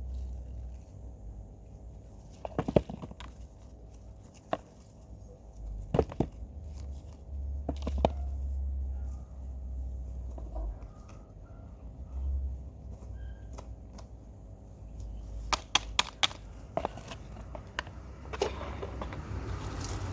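Potatoes being dug and handled: scattered sharp knocks and clicks, with a quick cluster of them about three-quarters of the way through, over a low, uneven rumble.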